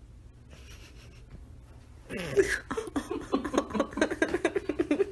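A person laughing, starting about two seconds in: a quick, even run of short 'ha' sounds.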